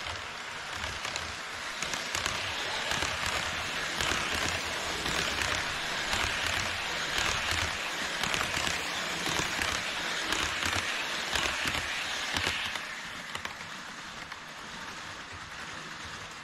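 HO scale model of an E5 series Shinkansen running past close by on KATO Unitrack: a steady rattling rumble of metal wheels on the rails, dense with small clicks at the rail joints. It grows louder about two seconds in and falls away sharply near the end as the last car passes.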